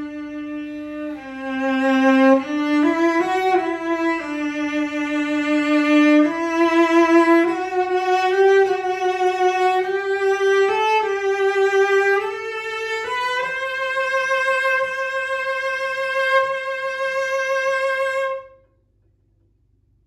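A 1931 John Juzek 'Master Art' cello, strung with Kaplan strings, bowed through a slow melody of single notes with vibrato in its upper range. The line ends on a long held note that stops shortly before the end.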